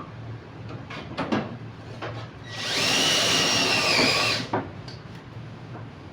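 A small electric power tool, drill-like, runs for about two seconds with a steady whine that sags slightly just before it stops, preceded by a few sharp clicks of handling.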